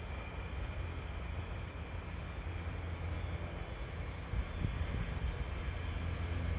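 A steady low rumble of outdoor background noise, with two faint, short high chirps.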